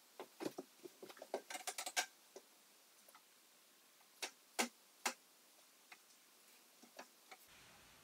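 Light clicks and knocks from a long spirit level being handled and set against a wooden door jamb: a quick cluster in the first two seconds, then a few single taps spaced out after.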